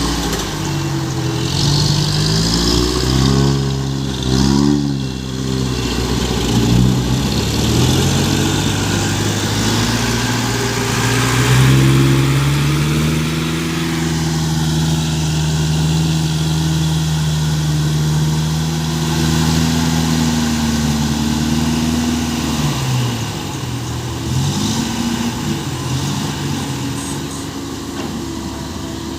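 Small six-wheel truck's engine running under way. Its pitch rises and falls several times in the first few seconds, then holds steady for about ten seconds before dipping and climbing again near the end.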